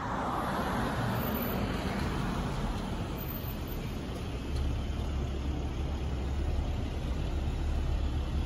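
Road traffic on a town street: a car passing close by, its tyre hiss fading over the first two seconds, then a steady low engine rumble that sets in about halfway through.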